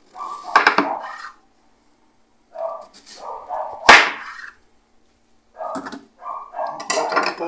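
Onion halves being dropped and pushed by hand into a plastic blender jar on top of dry ingredients: three bouts of knocking and rubbing against the plastic, with one sharp knock about four seconds in.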